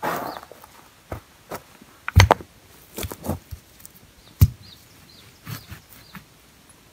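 Stones being handled and set down on the ground, giving a series of short knocks, the sharpest about four and a half seconds in, with footsteps and rustling in grass at the start.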